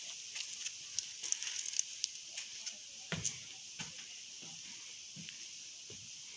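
Footsteps on a wooden plank walkway, dull thumps about every two-thirds of a second from about three seconds in, over a steady high hiss and a few sharp clicks near the start.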